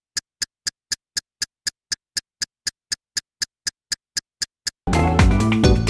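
Film-countdown ticking sound effect: sharp, evenly spaced ticks, about four a second. Near the end, loud music cuts in suddenly.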